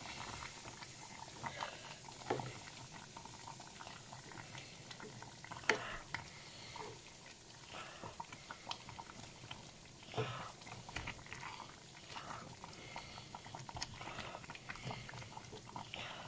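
Chicken curry simmering faintly in a stainless steel pot while a wooden spoon stirs it, with a few short knocks and scrapes of the spoon against the pot.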